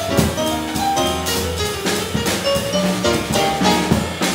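A small jazz combo playing: stage piano lines and chords over a drum kit, with cymbal and drum strokes keeping time.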